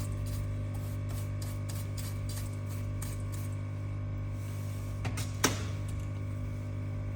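Light mechanical clicking, about four clicks a second, over a steady low electrical hum. The clicking stops about four seconds in, followed by two sharper clicks a little after five seconds.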